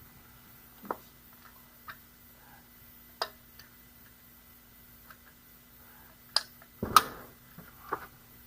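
Scattered light metallic clicks and taps from scooter parts and a bolt being handled while the bolt holes are worked into line, about six in all, with a louder knock about seven seconds in. The holes are slightly misaligned, so the bolt won't thread in yet.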